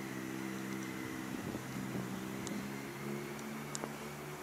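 A motor running steadily, a low even hum that wavers slightly about midway, with a few faint ticks over it.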